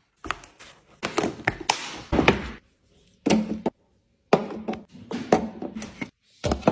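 Items being handled and set down while restocking a kitchen: a quick run of taps, knocks and clicks of containers and packaging, in short bursts broken by sudden silences.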